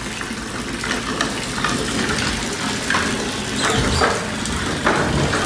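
A stream of water pouring into a partly filled plastic tub, a steady splashing hiss with a few brighter splashes.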